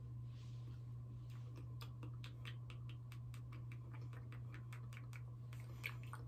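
A person making rapid mouth clicks, sharp and irregular at about five a second, starting about a second in, over a faint steady low hum.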